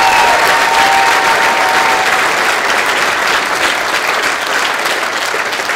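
Audience applauding, with a couple of held cheering calls over the clapping in the first two seconds; the applause slowly dies down toward the end.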